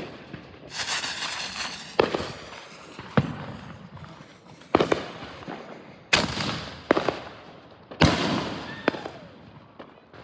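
Nishiki willow canister shells firing and bursting: a run of about eight sharp bangs at irregular spacing, several followed by a hissing crackle that trails off over a second or so.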